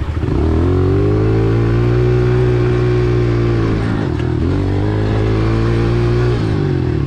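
Honda CRF125F four-stroke single-cylinder dirt bike engine pulling under throttle at steady high revs. It eases off about four seconds in, picks up again, and backs off once more near the end.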